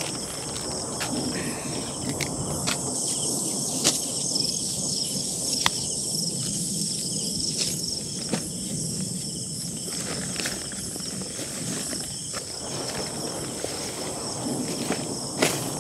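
Steady high-pitched chorus of insects, with scattered clicks and knocks of handling over it.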